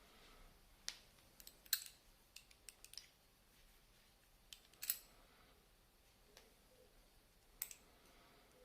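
Small metallic clicks and taps from handling an Abloy 330 padlock and its parts while taking the lock apart, about a dozen scattered sharp ticks with the loudest a little under two seconds in, near five seconds and near the end.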